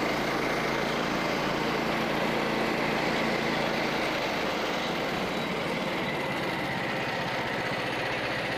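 Frontier OS27 band sawmill running, its small gas engine under load as the band blade cuts across the grain of a white oak log. About four seconds in, the low hum changes to a faster, finer rumble.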